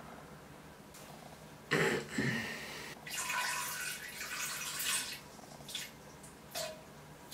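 Splashing into toilet-bowl water: a sharp splash about two seconds in, then a couple of seconds of splashing and trickling, and a few short drips near the end.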